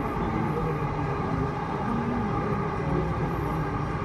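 Delhi Metro train running at speed, heard from inside the carriage: a steady rumble of wheels on rails with a constant whine.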